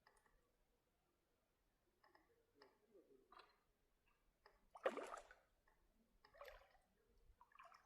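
Faint water sounds, a few small splashes and sloshes, with one louder splash about five seconds in.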